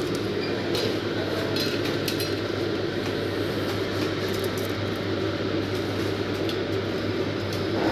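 Steady construction-site background noise: a constant low hum under a general din, with a few faint light metallic clicks and clinks.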